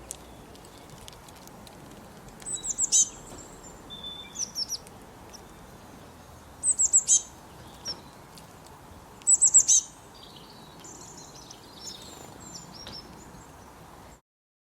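Small birds chirping: three bursts of four or five quick, high, downward-slurred chirps, with softer calls between them over a steady background hiss. The sound stops suddenly near the end.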